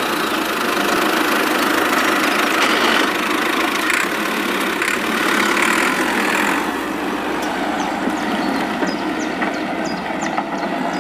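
Small electric motor and gearing of a DIY mini model tractor running steadily with a continuous whir.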